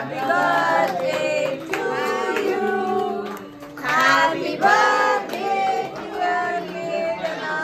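A group of people singing a song together, women's voices loudest, with several long held notes.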